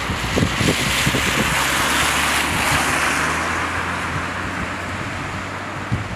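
Car tyres hissing on a wet road as a vehicle passes, the hiss swelling and then fading away, in falling rain. A low engine hum runs underneath, and wind thumps on the microphone.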